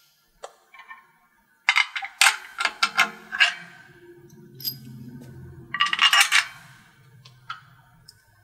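Small steel hardware (bolts and nuts) clinking together in a hand: two bursts of quick metallic clicks, the first about two seconds in and the second about six seconds in.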